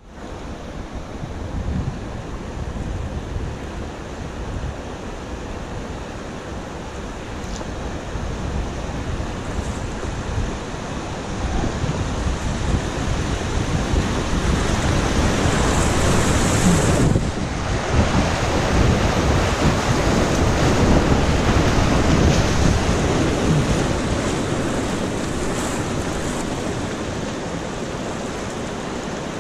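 Whitewater rushing around an inflatable raft as it runs a class III river rapid, with wind buffeting the microphone. The rushing grows louder about halfway through as the raft enters the white water, drops out for an instant, then eases off near the end.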